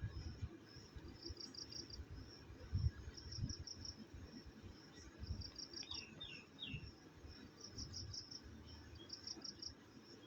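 Faint cricket chirping in short, repeated pulsed trains, over low irregular knocks and rumble; three brief falling chirps come about six seconds in.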